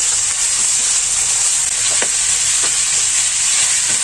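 Shredded chicken sizzling in hot oil in a frying pan while a slotted spatula stirs it: a steady frying hiss with a few light scrapes of the spatula.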